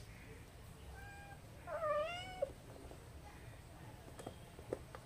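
A cat meows once, clearly, about two seconds in, with a shorter, fainter call about a second in. A few light clicks follow near the end.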